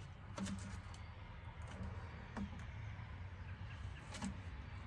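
Plastic oil bottles being handled while the last of one is poured into the other: a few faint clicks and knocks over a low steady hum.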